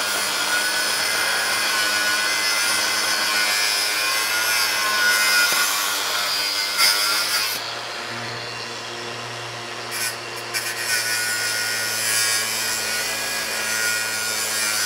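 Hilti AG 4S-A22 cordless brushless angle grinder grinding welds on a steel plate: a steady motor hum under harsh grinding. About eight seconds in, the wheel lifts off the metal and spins free for a couple of seconds, then bites in again.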